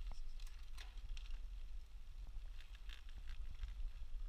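Mountain bike riding: a steady low wind rumble on the microphone with scattered light crackles and ticks of tyres rolling over the gravel path.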